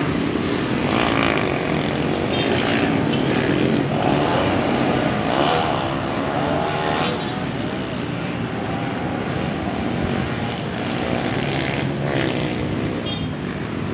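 Several motorcycle engines buzzing and revving, their pitch rising and falling, over steady road traffic noise.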